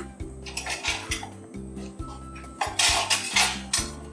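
Knife cutting a small watermelon on a cutting board: a few sharp knocks of the blade, then a stretch of crunchy, rasping slicing through the rind about three seconds in.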